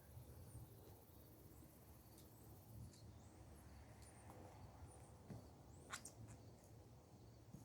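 Near silence, with a few faint high chirps, like small birds, and a couple of brief light clicks, the sharpest about six seconds in.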